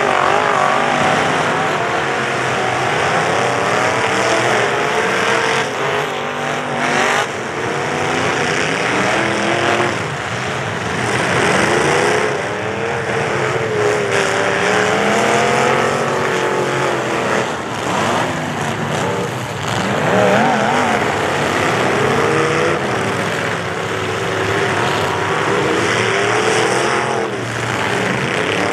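Several demolition-derby pickup truck engines revving hard at once, their pitches rising and falling, with a few sharp crunches of trucks colliding.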